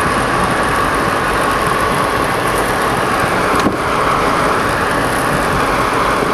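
Steady road and wind noise of a car driving at race speed, heard from inside the car, with one light click a little past halfway.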